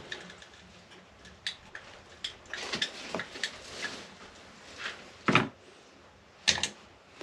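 Scattered clicks, knocks and rustles of hands handling an electrical wall switch device and its wires at an open wall box. A louder knock comes past the middle, and a quick double click near the end.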